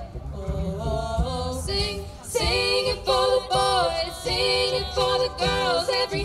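Small mixed vocal group singing a cappella in close harmony into handheld microphones. The singing is softer for about the first two seconds, then the full group swells in.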